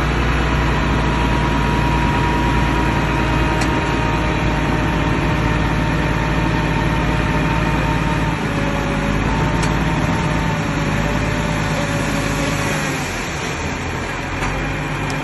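Heavy diesel earthmoving machine's engine running steadily, with a high whine over the low drone. The engine sound eases off about thirteen seconds in.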